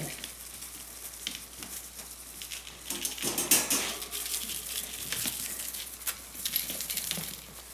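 Kittens playing with a feather wand toy: scattered light clicks, taps and rustling from the swishing wand and small paws on the floor mat, busiest about three seconds in.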